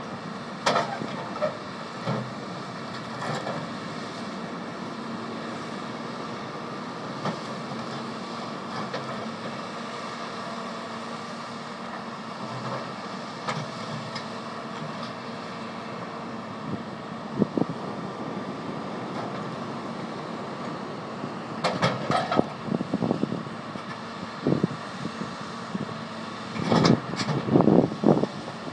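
Tracked hydraulic excavator's diesel engine running steadily while it moves rip-rap boulders, with clusters of loud knocks and clatter of rock against rock and the steel bucket about three quarters of the way in and again near the end.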